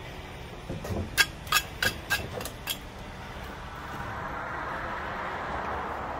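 Stone veneer and masonry tools being handled: about five sharp clinks, knocks of stone against stone or a steel trowel, about a second in. A steady rushing noise then builds from about four seconds in.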